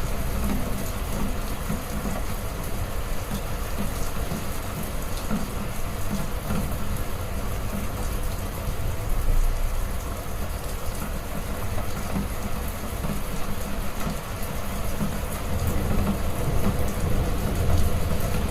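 Heavy rain falling steadily, with a deep rumble underneath.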